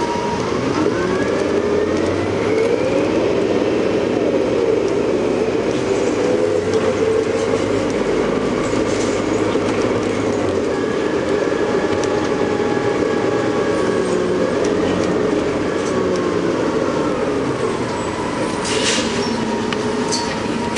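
Inside a 2000 New Flyer C40LF CNG bus with a DDEC Series 50G natural-gas engine and Allison B400R automatic transmission. The bus pulls away: the engine and transmission whine climbs in pitch through a gear change, holds while cruising, then falls as the bus slows and settles back to a steady idle whine. A few short sharp clicks come near the end.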